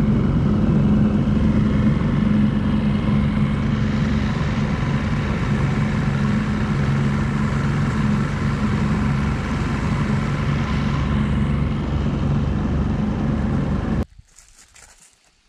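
Outboard motor of an aluminum river boat running steadily at speed, then cutting off suddenly near the end.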